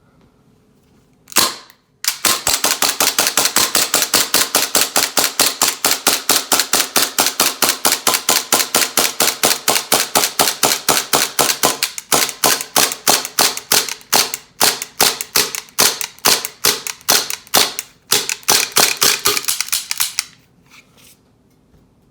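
Matrix M9 gas blowback airsoft pistol (a plastic-slide Tokyo Marui clone) on green gas, fired as fast as the trigger allows: a single shot, then a long string of sharp cracks with the slide cycling, about four to five a second. The pace slows about halfway through and the string stops a couple of seconds before the end. The rapid fire is demonstrating gas cooldown, which leaves the shots inconsistent.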